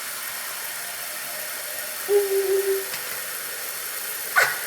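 Bathroom sink tap running in a steady stream while water is splashed on a face. A brief hummed tone comes about two seconds in, and a click near the end.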